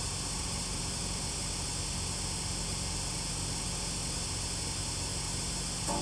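Steady white-noise hiss of static from the GhostTube spirit box app, with a faint low hum under it.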